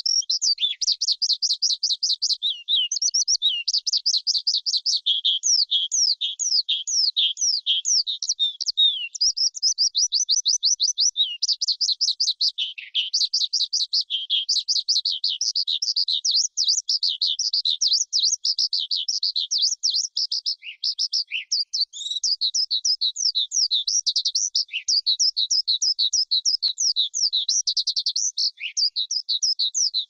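Skylark singing a long, unbroken, high-pitched song of rapid trills and quickly changing warbled notes, with only brief pauses.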